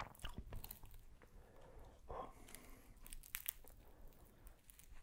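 Faint, scattered small crackles and clicks as fingers crumble feta cheese over a falafel waffle.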